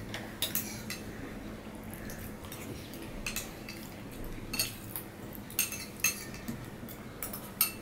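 Metal spoons clinking and scraping against ceramic plates and bowls as two people eat, with a scattering of short, light clinks, some in quick pairs.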